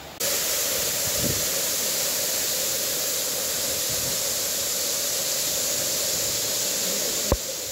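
Waterfall pouring down a rock face, heard close up as a steady rushing of falling water. It starts abruptly just after the beginning and breaks off with a click near the end, where it turns quieter.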